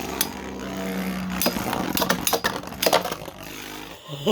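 3D-printed Beyblade spinning tops whirring and clashing in a plastic stadium: a steady spinning hum broken by several sharp plastic knocks as the tops collide.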